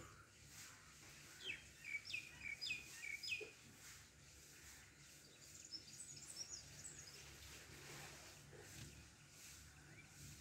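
Small birds calling: a run of four or five short, falling whistled notes about two seconds in, then a higher twittering around six seconds in, all faint against a low background hum.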